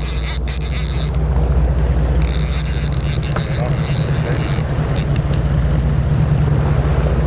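Charter fishing boat's engine running steadily under way, with a low hum and the hiss of wind and water. A higher hiss comes and goes twice in the first half.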